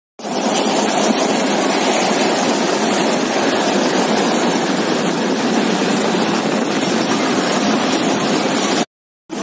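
Steady rushing noise of a steam train running alongside at close range, with no separate exhaust beats standing out. The sound drops out briefly near the end.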